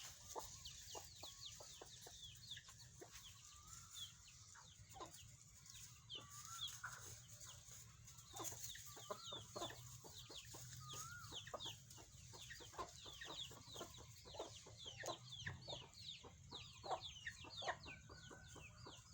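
Chickens calling and clucking: a dense run of many short, falling chirps, with a few longer wavering calls mixed in, all fairly faint.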